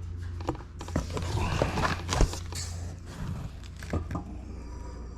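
Handling noise: scattered clicks, taps and short scrapes as the boxed replacement dropper post is moved around, over a steady low hum.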